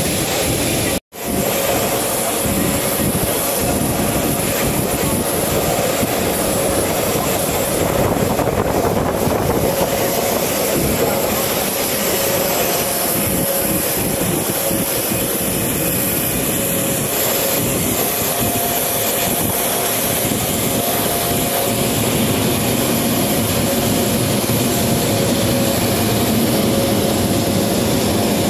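Steady jet-aircraft turbine noise: a constant loud rush with a steady whine on top. The sound drops out completely for a split second about a second in.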